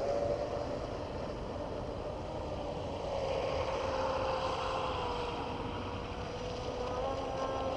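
Traxxas M41 Widebody RC boat's brushless electric motor and propeller running at speed: a steady whine that wavers slightly in pitch, over a faint hiss.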